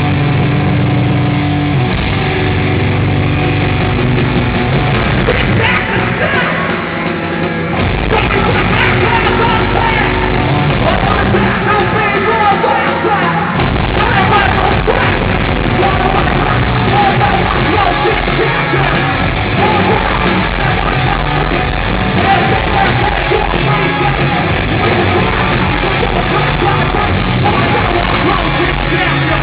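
A live heavy rock band playing loud, with yelled vocals over distorted guitars. The low end drops out briefly twice, about 7 and 13 seconds in.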